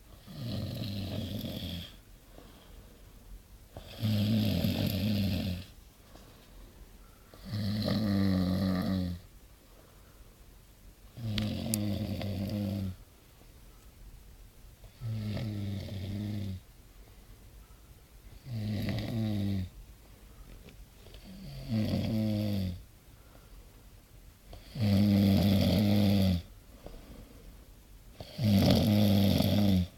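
A sleeping man snoring loudly and regularly: nine long snores, each about a second and a half, one every three and a half seconds or so.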